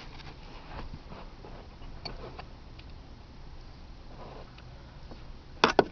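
Faint handling sounds with scattered small clicks, then a few sharp clicks close together near the end, as the new seat belt buckle and its bolt are handled and fitted.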